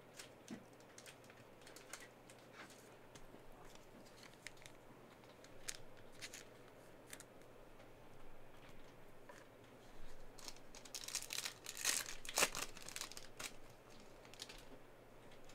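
Foil trading-card pack wrapper crinkling and tearing open, with small clicks and rustles of cards being handled. The crinkling is densest about ten to thirteen seconds in.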